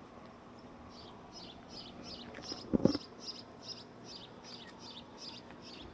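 A bird chirping over and over in short, high, falling notes, about three a second. A brief double thump just before halfway through is the loudest sound.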